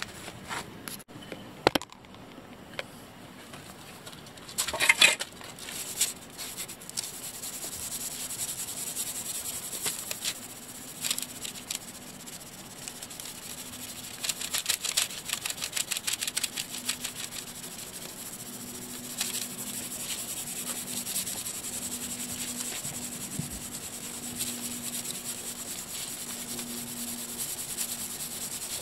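Hand sanding of the filled, masked stripe on a motorhome's side: sandpaper rubbed in runs of quick back-and-forth strokes during finish sanding. A few knocks and rustles in the first seconds.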